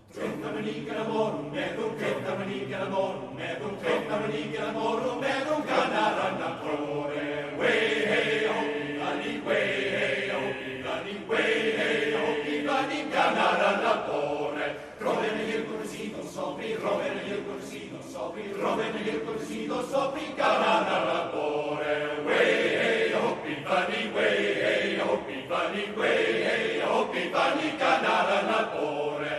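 Male voice choir of tenors and basses singing together in full harmony, coming in all at once and singing on without a break.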